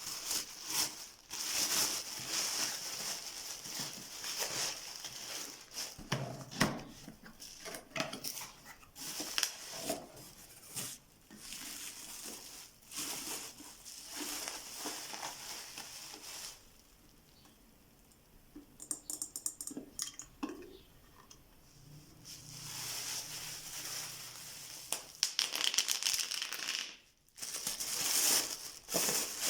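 Close-up unboxing sounds: plastic packaging crinkling and cardboard being handled and opened, mixed with irregular taps and clicks. A quieter stretch a little past halfway holds only faint ticking.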